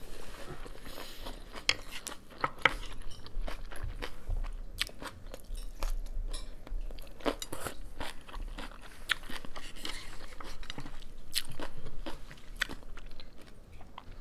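A person chewing and biting crunchy vegetables: many sharp, irregular crunches.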